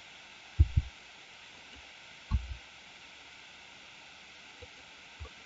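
A few soft, low thumps over a steady background hiss: two close together about half a second in, a short cluster just after two seconds, and two faint ones near the end.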